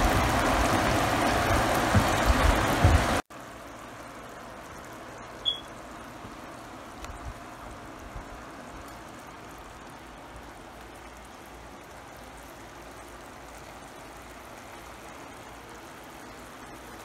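Shrimp in coconut-milk sauce bubbling and sizzling in a skillet, loud for about three seconds, then cut off abruptly to a much quieter steady simmering hiss. A short high chirp sounds about five seconds in.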